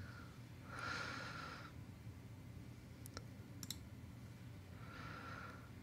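Quiet room tone with a low hum and a few faint, sharp clicks: one about three seconds in, then a quick double click half a second later. Two soft hisses come near the start and near the end.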